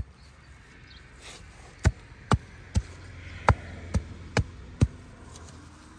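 Sharp knocks: one at the start, then a run of seven about two a second, with a brief pause partway through.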